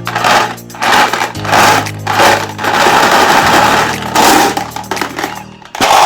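Electric meat grinder running with glass marbles being crunched in it: irregular hard clicks and cracking over a steady motor hum.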